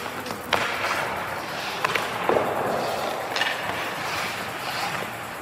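Ice hockey puck and stick clacks with skate blades scraping on the ice; three sharp clacks come about half a second in, just before two seconds and about three and a half seconds in.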